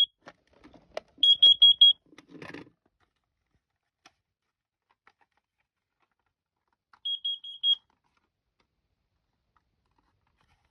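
First Alert carbon monoxide alarm sounding its test: two groups of four quick, high-pitched beeps about six seconds apart, the four-beep pattern that signals carbon monoxide. A single short beep comes at the very start, and a brief knock follows the first group.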